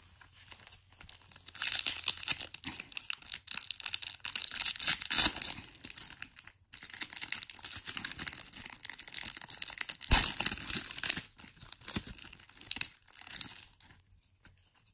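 A Pokémon HeartGold SoulSilver booster pack's foil wrapper being torn open and crinkled in the hands, in two long stretches of tearing and crackling, dying away near the end.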